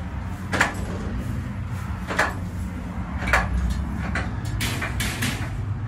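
About six sharp knocks and clicks, irregularly spaced, over a steady low rumble.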